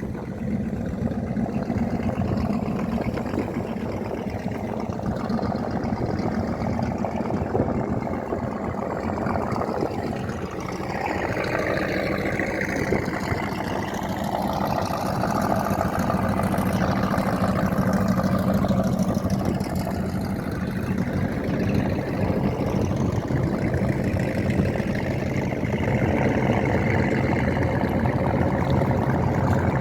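Motorboat engine running steadily, with a low continuous hum throughout.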